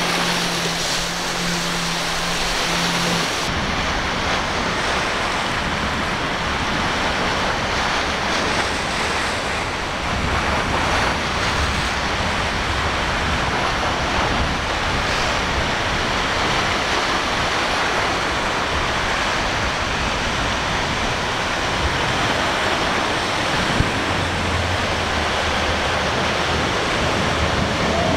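Rough water rushing and breaking in the inlet, with wind buffeting the microphone. For the first few seconds a passing quad-outboard center-console boat's engines hum steadily under it, and a low engine drone comes in near the end.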